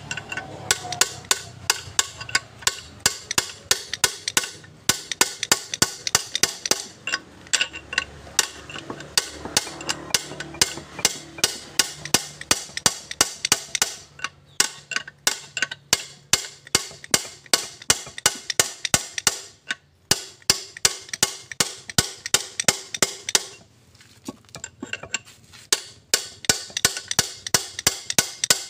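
Rapid metallic clicking, about four a second in runs broken by short pauses, from the ring gear and side adjusting nut of a Colt Diesel 120PS differential being worked to set the ring-and-pinion gear clearance.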